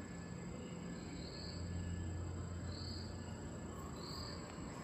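Cricket-like insect chirps, a short chirp about every second and a half, over a low steady hum, played through gallery speakers as part of a sound installation's soundtrack.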